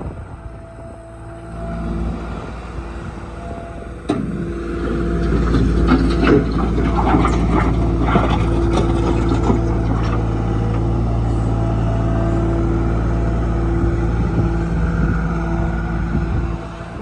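John Deere 240 skid steer's diesel engine running. It gets louder about two seconds in and again sharply at four seconds, with clanks and rattles from the machine over the next several seconds, then runs steadily until it drops off near the end.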